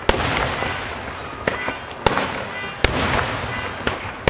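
Fireworks display: about six sharp bangs from shells bursting overhead, spaced half a second to a second apart, with a rushing hiss of noise between them.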